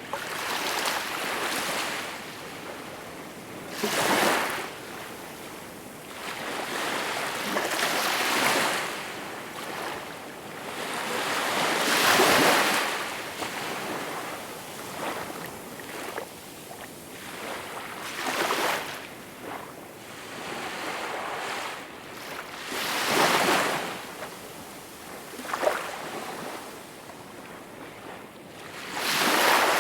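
Small waves breaking and washing on a shore, each surge of water swelling and fading every few seconds, a few of them sharper splashes.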